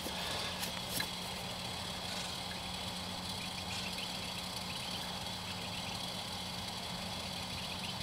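Steady low mechanical hum with a couple of faint ticks in the first second.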